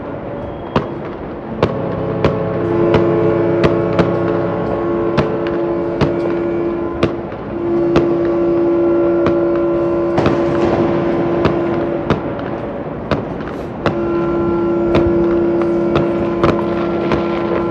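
Yacht horns sounding long overlapping blasts, several pitches at once with short breaks, over a steady run of firework bangs.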